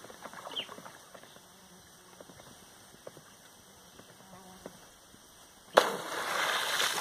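A sudden sharp splash about six seconds in, followed by a rush of water, as a river dolphin (boto) strikes an electric eel at the surface.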